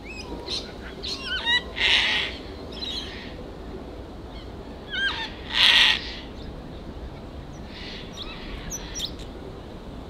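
Sulphur-crested cockatoo giving two harsh screeches, about two seconds in and again near six seconds, the second the louder. Higher chirps and short whistles of other birds come in between.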